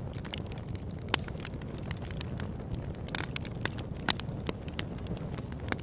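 Crackling fire: a steady low rumble with sharp, irregular pops and snaps.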